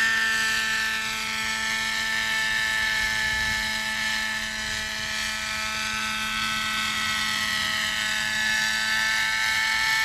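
Radio-controlled coaxial helicopter in flight, its Webra 50 glow engine running at a steady high whine together with its rotors. The sound fades a little in the middle and comes back as the helicopter moves around overhead.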